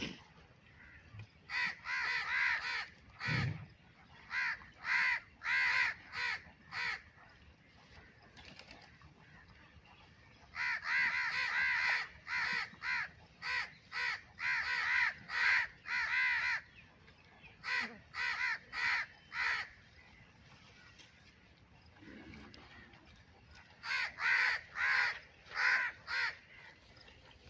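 Short, harsh animal calls repeated in bouts, about two a second, with quieter pauses between the bouts.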